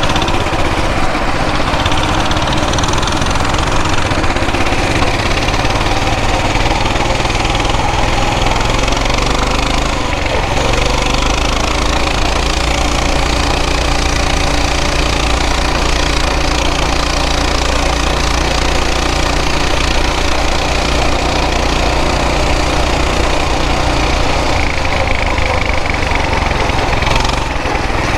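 Coleman BT200X mini bike's small single-cylinder four-stroke engine running steadily while riding, over an even rush of noise; the engine note changes about ten seconds in.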